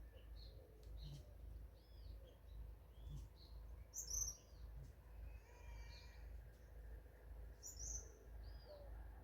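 Forest birds calling: a short arched chirp repeats about once a second, with louder high chirps about four seconds in and again near the end, over a faint low rumble.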